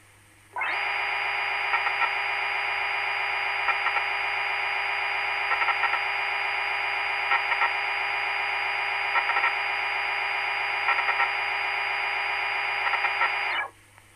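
Machine sound effect of the SwanSoft CNC simulator's milling machine, played by the software during a simulated machining run. It is a steady, constant-pitch buzzing tone with small louder blips that repeat about every two seconds. It starts about half a second in and cuts off suddenly near the end.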